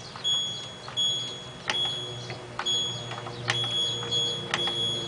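LG F1222TD washing machine control panel beeping as the spin-speed button is pressed again and again to change the spin setting: a short high beep roughly once a second, some with a sharp button click.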